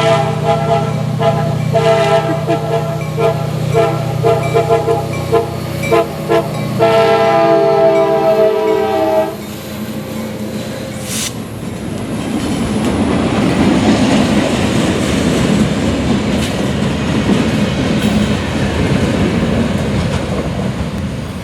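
Nathan K5LA air horn on a CSX EMD GP40-2 diesel locomotive: a held blast, a quick string of short toots, then one long blast that cuts off about nine seconds in. The locomotive and its slug then pass, with a rising rumble and clatter of wheels on the rails, and a sharp click about eleven seconds in.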